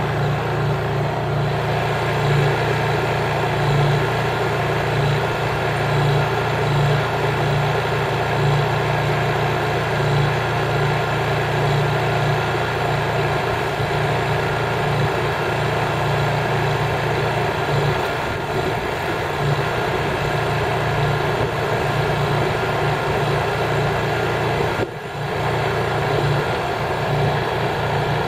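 Honda EU3000is inverter generator's GX200 engine running steadily with the eco throttle off, a loud, even hum with a brief dip in level about 25 seconds in.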